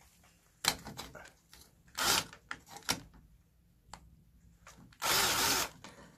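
Cordless drill-driver with a 13 mm socket spinning nuts off in two short runs, a brief one about two seconds in and a longer one of under a second near the end, with sharp metallic clicks of the socket in between.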